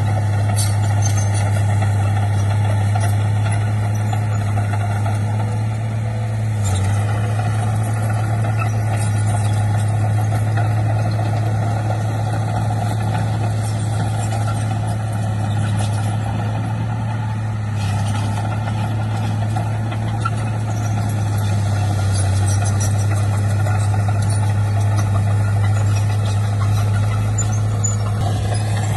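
Heavy-machinery diesel engine running steadily at an even pitch, with a few light clinks.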